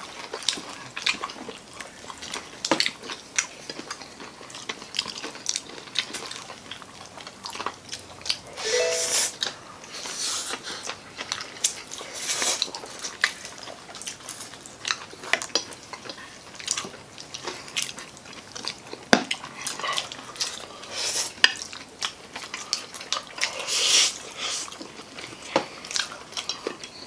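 Several people eating pancit canton noodles and fried chicken close to the microphone: chewing and biting, with frequent short clicks and clinks of metal tongs and forks against plates. There are a few longer, louder bursts of eating noise around nine to twelve seconds in and again near the end.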